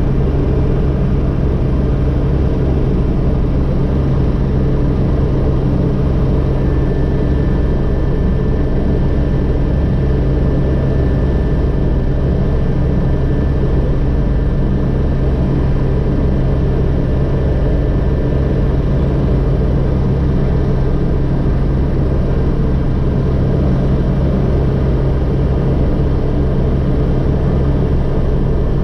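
Agusta AW119 helicopter's Pratt & Whitney PT6B-37A turboshaft and main rotor running steadily on the ground at flight rotor speed, heard from the cockpit with the doors open: a low, even drone with the rapid beat of the rotor blades. A faint high tone joins about six seconds in.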